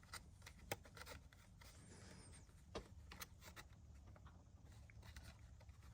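Faint, scattered clicks and light rubbing of plastic steering-column parts being handled and pushed into place, over a low steady hum.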